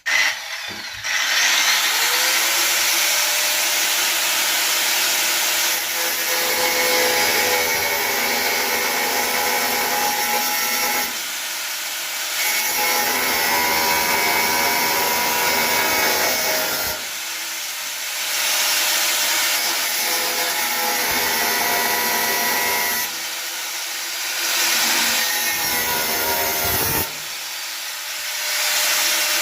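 Electric drill with a wire brush attachment running against sheet metal, grinding rust and paint back to bare steel on a van floor to prepare it for filler. The motor whine and harsh scraping stop and restart suddenly several times.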